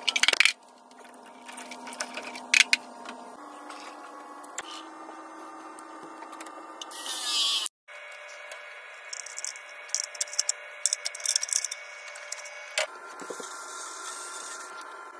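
Plumbing work on copper pipe: scattered clicks and scrapes of hand tools on the pipe, a short hiss about seven seconds in, and near the end a cordless drill spinning a bit on the cut pipe end.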